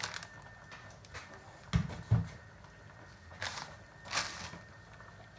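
Plastic carrier bag crinkling as dog biscuits are crushed inside it, with two dull knocks close together about two seconds in.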